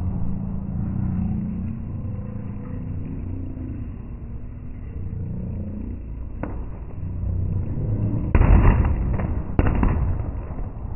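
Aerial fireworks bursting overhead: a single sharp crack about six seconds in, then two loud bangs a little over a second apart near the end, each trailing off, over the steady low murmur of a large crowd.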